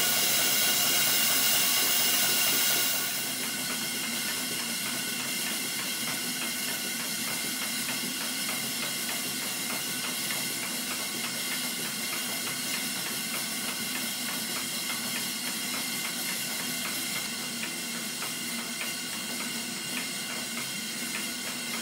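Loud steam hiss for about three seconds, then a model twin-cylinder horizontal steam engine running under live steam: a fast, even beat of exhaust and working parts over a steady hiss of steam.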